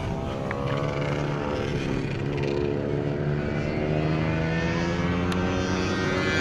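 An engine droning steadily, its pitch drifting slowly up and down.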